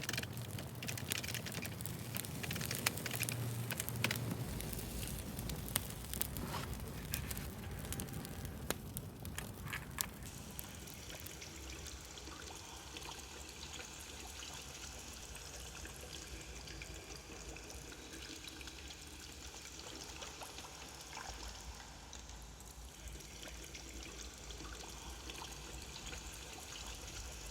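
Faint scratching of a glass pen nib on paper, with many small ticks and clicks in the first ten seconds, then a quieter, steadier scratch.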